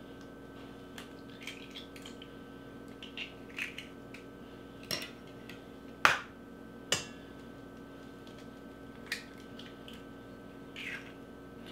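Eggs cracked against the rim of a stainless-steel mixer bowl and broken open: a few short sharp cracks and clicks spaced a second or more apart, over a faint steady hum.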